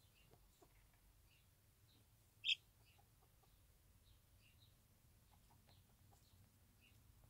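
Faint, scattered peeping of newborn chicks nestled under a bantam hen, with one short, much louder peep about two and a half seconds in. A few soft, low clucks from the hen are mixed in.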